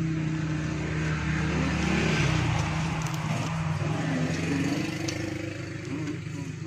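A motor vehicle engine passing close by, its noise swelling to a peak about two seconds in and then slowly fading, with the engine pitch rising and falling in the second half.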